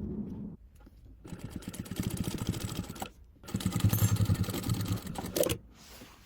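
A small machine running in two bursts of rapid, even ticking, each about two seconds long, while the new zipper insertion pin is being attached to a down jacket.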